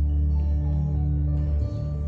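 Instrumental music with long held low notes and a few softer higher notes above them.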